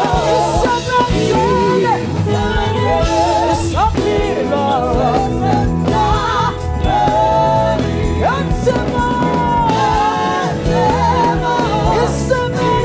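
Live gospel music: singing over a full band, the voices wavering and gliding over a steady accompaniment with cymbals.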